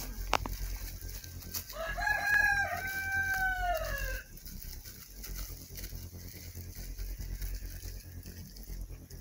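A rooster crowing once: a single call of about two and a half seconds that holds its pitch, then slides down at the end.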